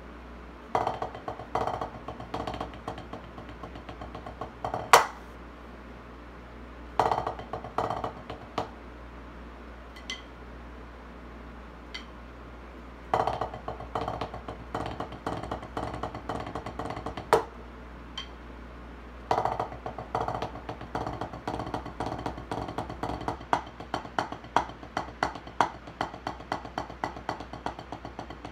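Wooden drumsticks playing fast sticking patterns on a rubber drum practice pad, in several bursts of rapid taps with short pauses between. A few single strokes are louder and sharper. From about two-thirds of the way in the playing runs on without a break.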